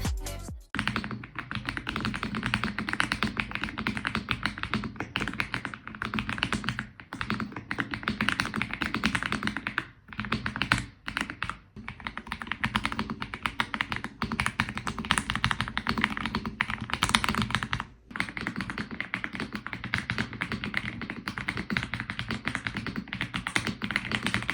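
Fast, continuous typing on an Aula F75 mechanical keyboard with Leobog switches: a dense stream of key clicks and clacks. It stops in brief pauses about ten seconds in and again near eighteen seconds.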